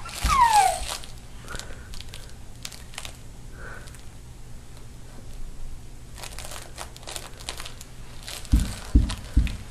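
A baby gives one short high squeal that slides down in pitch right at the start, followed by soft crinkling and rustling handling noises, with a few dull thumps near the end.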